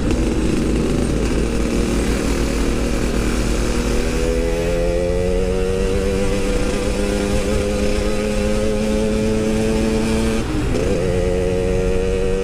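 Yamaha RX-King 135cc two-stroke single-cylinder engine running steadily, its pitch climbing slowly for several seconds, with a brief dip and recovery about ten seconds in.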